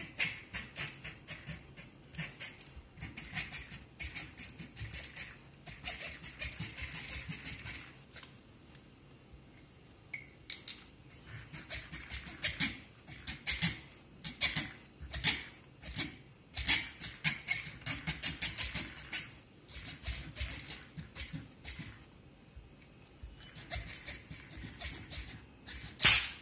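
Knife blade scraping and cutting through the plastic seal around a whisky bottle's stopper in repeated short strokes. The strokes ease off for a couple of seconds about eight seconds in, then come back sharper, with one loud click near the end.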